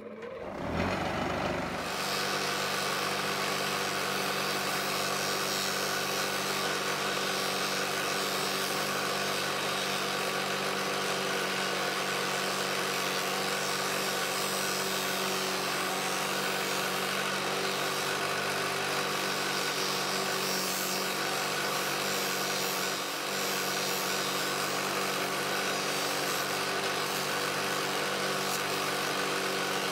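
Electric bench polisher winding up to speed over the first two seconds, then running steadily with a hum and hiss while a metal hole-puncher part is held against its cotton buffing wheel for a mirror polish.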